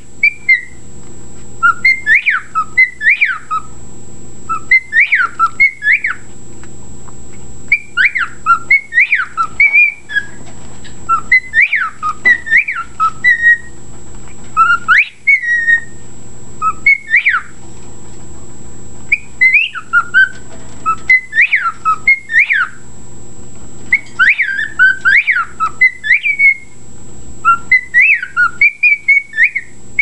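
Cockatiel whistling learned tunes: loud clusters of rising and falling whistled notes, a phrase every second or two with short pauses between.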